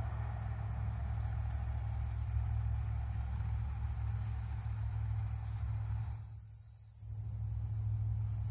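Steady high-pitched insect drone, such as crickets, over a louder low rumble that drops away for about a second near the end.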